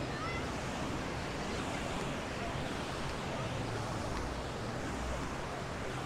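Ocean surf washing onto a sandy beach: a steady, even rush of breaking waves.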